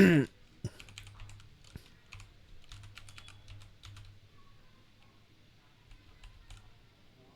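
Typing on a Kreo computer keyboard: irregular key clicks, busy for the first few seconds and then thinning out to scattered keystrokes.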